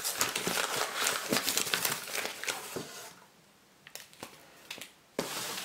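Packaging crinkling and rustling as it is handled, dense for about three seconds, then a few light clicks and a short rustle near the end.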